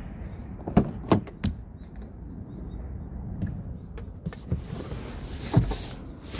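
Car body hardware being handled: a few sharp clicks and knocks of a latch, a rushing hiss, then a heavy thump of a car door or tailgate shutting near the end.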